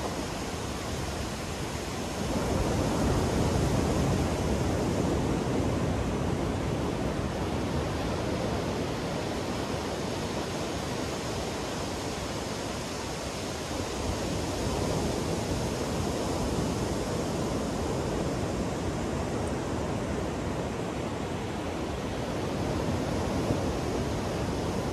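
Ocean waves breaking and washing up a sandy beach, a continuous wash of surf that swells about two seconds in and again around the middle.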